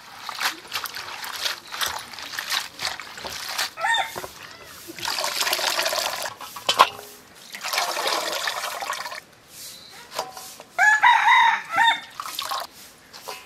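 Water splashing and streaming as leafy greens are swished, lifted and squeezed by hand in an aluminium bowl of water. A rooster crows loudly about eleven seconds in, with a shorter call near four seconds.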